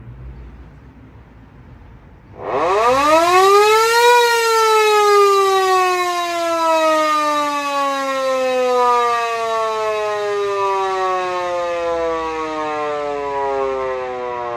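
Electric air-raid siren starting up. After about two seconds of faint low rumble its tone rises steeply for under two seconds, then falls slowly in pitch as it winds down.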